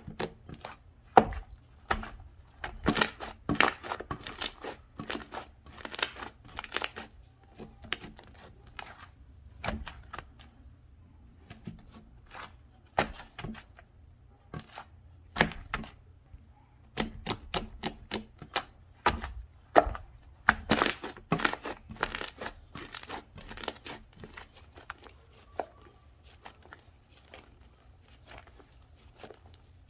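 Slime being squeezed, stretched and folded by hand, giving irregular clusters of sharp clicks, pops and crackles, sparser near the end.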